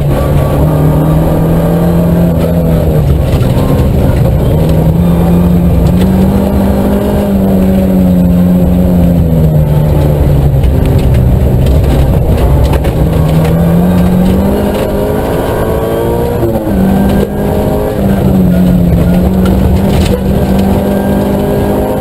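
Nissan Micra K11 rally car's engine heard from inside the cabin, revving hard through the gears on a gravel stage. The revs fall as the car slows about halfway, then climb again through a quick gear change and hold high near the end. Stones knock and click against the underbody throughout.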